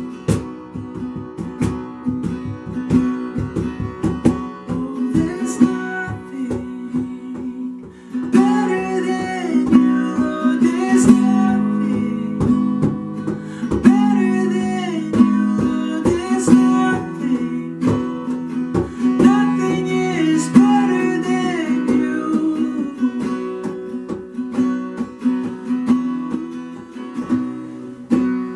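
Worship music: an acoustic guitar strummed steadily, with a voice singing over it through the middle of the stretch.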